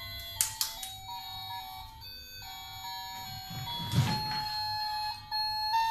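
A battery-powered children's toy plays a simple electronic melody of beeping notes that step from pitch to pitch. A few sharp plastic clicks come shortly after the start, and a dull thump about four seconds in.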